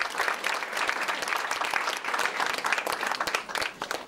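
Audience applauding, a dense clatter of many people clapping.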